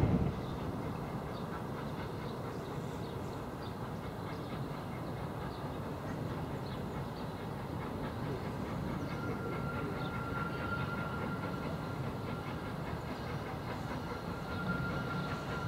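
Small industrial steam tank locomotive working a passenger train towards the listener, a steady sound of the engine working and the train running on the rails.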